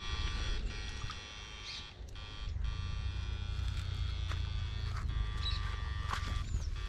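Steady electric buzz of a backpack battery-powered electrofishing unit running while its pole is in the water, a high whine made of many fine tones, over a low rumble.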